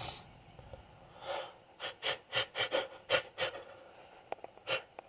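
A man's nose and breath in short, quick sniffs and gasps, a rapid run of about eight in two seconds and one more near the end: the hitching breaths of an allergy attack from sniffed pollen as a sneeze builds.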